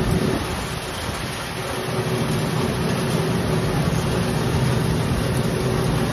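Pepper threshing machine running steadily, a motor hum with a constant tone over the rumble and rattle of its drum stripping peppercorns from the vines fed into it. The load eases slightly about half a second in and builds back up a second or so later.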